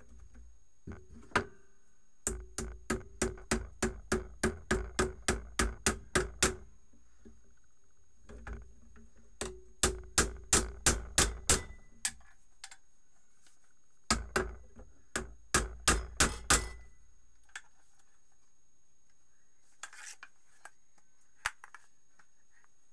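Century-old limb clippers being worked by hand, giving sharp, evenly spaced knocks with a short ringing tone, in three runs of about a dozen at two to three a second. A few lighter clicks follow near the end.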